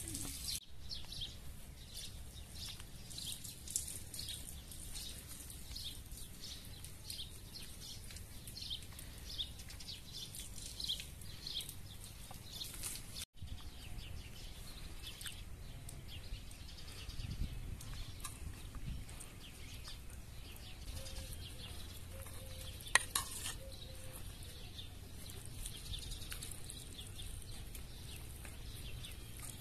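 Faint crackling and scraping of cooked rice and duck being served and pulled apart on metal platters and china plates, with one sharp clink about 23 seconds in, over a quiet outdoor background.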